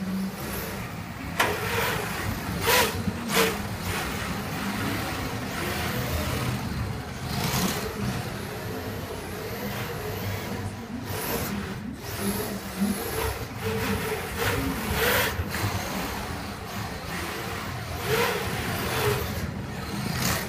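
Radio-controlled drift cars whirring as they slide around a carpet track, with short sharp bursts of noise every few seconds.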